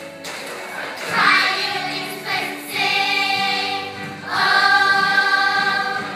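Music: a choir singing, with long held notes in three phrases that swell about a second in, near the three-second mark and past four seconds.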